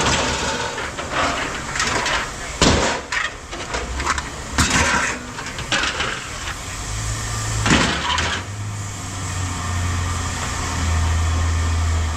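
Pieces of scrap metal clattering as they are handled and tossed, several separate clanks. From about seven seconds in a low, steady engine hum sets in and grows louder toward the end.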